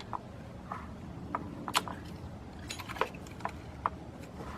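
Scattered light clicks and taps of small parts and tools being handled in an engine bay, a dozen or so irregular strikes, over a low steady hum.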